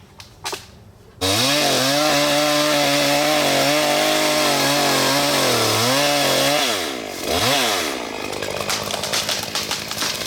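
Gas chainsaw starting up about a second in and running at high revs through a hinge cut in a tree trunk. Near the end it drops back, revs once, then runs rougher with crackling.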